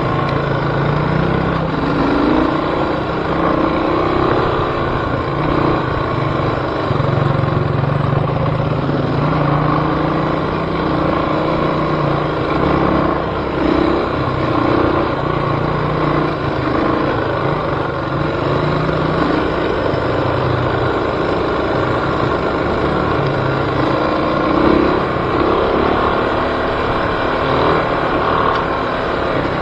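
Off-road vehicle engine running under way, its revs rising and falling unevenly.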